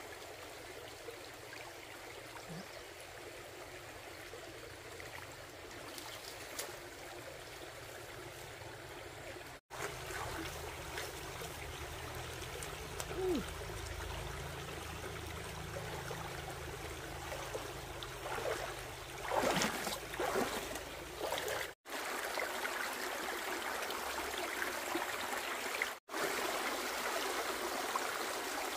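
Shallow stream running and trickling over a small spill of leaves and stones, with louder splashing about two-thirds of the way through as someone wades in it.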